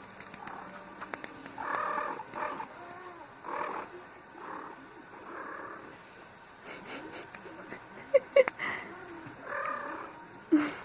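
Pet cat making a string of short, soft little calls, several seconds apart. A few sharper, louder sounds come about 8 s in and again near the end.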